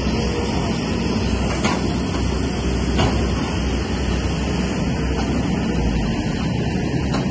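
Komatsu excavator's diesel engine running steadily as it works, with a couple of faint knocks.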